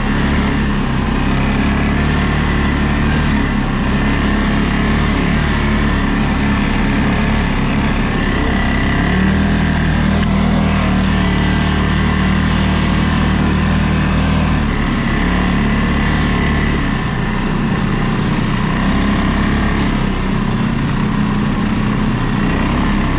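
ATV engine running while riding off-road, its note rising and falling with the throttle and easing off about two-thirds of the way through, with a steady hiss over it.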